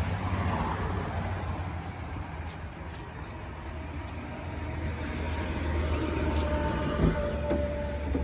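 Steady low rumble of a motor vehicle, swelling somewhat in the second half, with a sharp tick about seven seconds in.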